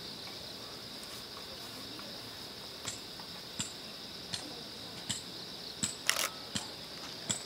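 Steady high-pitched insect drone, with a series of sharp clicks or knocks about every three-quarters of a second from the middle onward.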